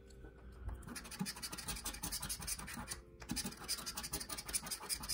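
A coin scraping the scratch-off coating from a paper lottery ticket in fast, rasping strokes, starting about a second in, with a brief pause midway.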